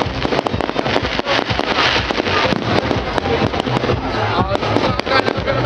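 Fireworks display: a rapid, continuous string of bangs and crackling cracks, with voices from the crowd mixed in.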